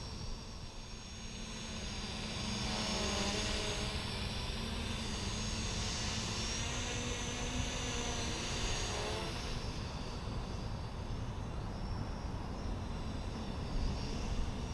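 Small quadcopter drone (Hubsan H502S) flying, its motors and propellers whining with a pitch that wavers up and down as it holds and adjusts position, over low wind rumble on the microphone.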